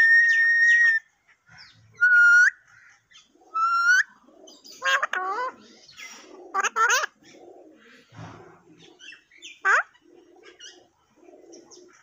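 Alexandrine parakeet whistling and calling. A steady whistled note ends about a second in, two short rising whistles follow, then a cluster of harsh calls in the middle and another whistled note near the end, with soft chatter between.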